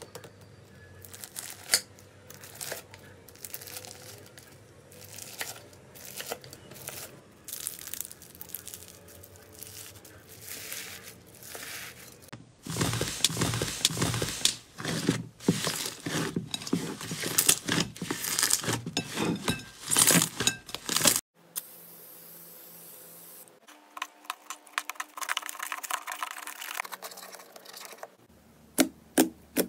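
Slime being handled: a knife cutting through crunchy bead slime with steady crackling, then much louder, denser crackling and popping from about halfway through as hands press and fold a large slime, and quieter scattered pops and clicks near the end.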